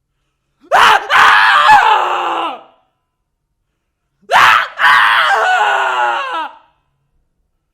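A man screaming twice, two separate cries a few seconds apart, each starting with a sharp short burst and breaking into a longer cry that falls in pitch and trails off.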